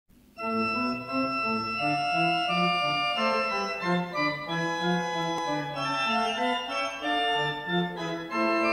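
Organ playing slow, sustained chords that change every half second or so, starting about half a second in: music opening a church service.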